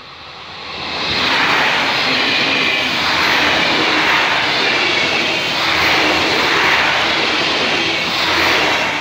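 A passenger multiple-unit train passing at speed close by: a loud rushing noise of wheels on rails and air that swells in within the first second, holds for about eight seconds with gentle rises and falls, and starts to fade at the end.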